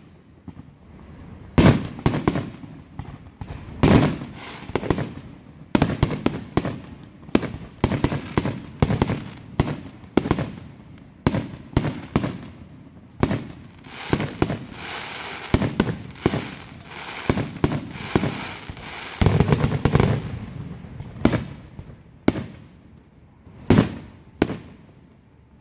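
Aerial fireworks shells bursting one after another in a string of sharp booms. About halfway through there is a stretch of crackling stars, and a few seconds later comes a dense cluster of heavy bangs.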